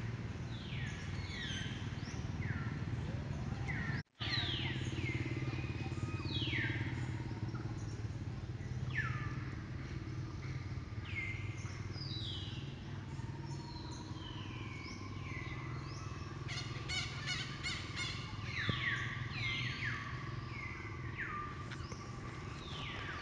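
Birds calling with many quick, high chirps that slide downward, over a steady low hum. About four seconds in the sound cuts out for a moment.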